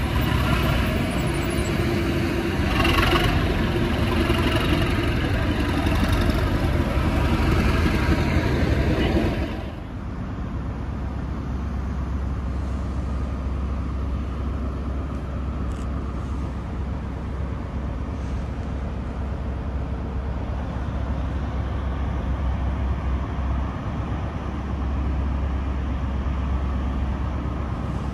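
A loud, dense noise runs for about ten seconds and cuts off abruptly. It gives way to the steady low drone of a ScotRail Class 43 HST power car's diesel engine idling at the platform.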